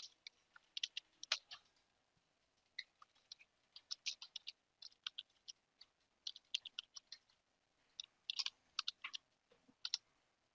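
Computer keyboard keystrokes as a terminal command is typed: faint, sharp key clicks in uneven runs with short pauses between them.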